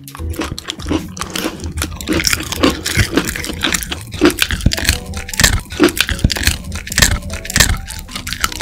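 A Shiba Inu chewing a dried meat jerky treat: a rapid, irregular run of crunches and teeth clicks.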